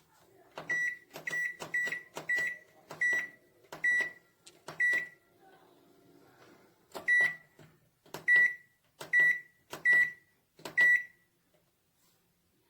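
MEDION MD 14482 microwave's control panel beeping as its keys are pressed: twelve short, high beeps, each with a click, in a run of seven, a pause, then five more.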